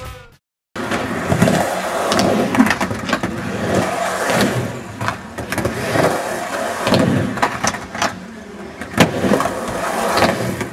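Skateboard wheels rolling on pavement, with a few sharp clacks of the board. The sound cuts out briefly near the start.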